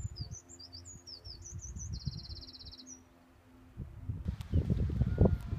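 A small songbird singing: a run of quick high chirps and then a fast, even trill, ending about three seconds in. Under it, irregular low thumping from footsteps and wind on the microphone, which drops away briefly and comes back louder near the end.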